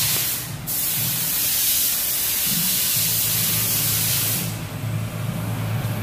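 A steady hiss, with a low hum under it that grows stronger about halfway through.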